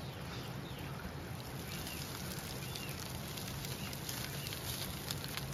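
Rustling and crackling of dry scrub and branches with footsteps as a hunter scrambles up a steep bushy slope, with a few faint bird chirps.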